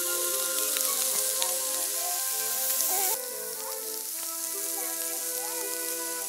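Shashlik (skewered meat) sizzling over a campfire: a steady hiss with small pops that drops in level suddenly about three seconds in. Background music plays over it.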